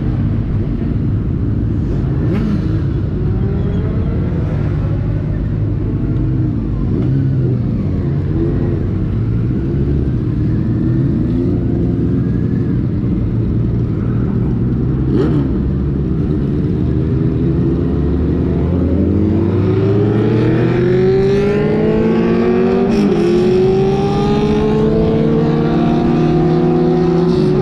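Benelli TNT600i inline-four motorcycle engine under way, then accelerating hard from about two-thirds of the way in: the engine note climbs steeply, drops briefly at an upshift, and climbs again.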